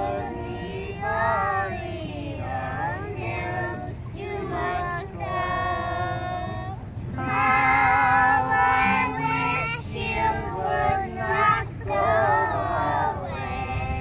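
A small group of young children singing a song together to a strummed acoustic guitar, an adult woman's voice joining in. The singing grows louder about halfway through.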